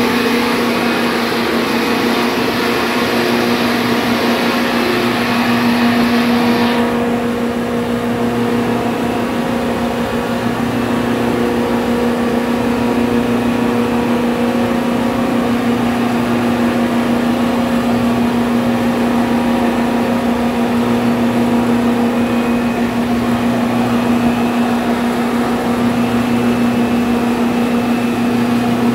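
Ship's provision-plant refrigeration machinery running, mainly the large compressor: a loud steady hum with a firm low tone. A higher hiss over it cuts off suddenly about seven seconds in.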